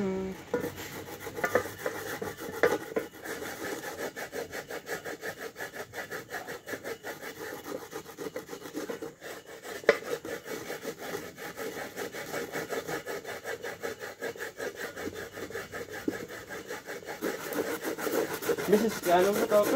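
Coconut being grated by hand: the flesh of a half coconut rubbed back and forth against a handheld grater board, a steady rasping scrape in quick, regular strokes.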